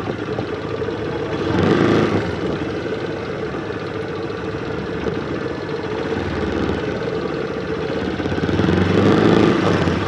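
Motorcycle engine running at low speed on a rough dirt road, with road and wind noise. It swells louder twice, about two seconds in and again near the end.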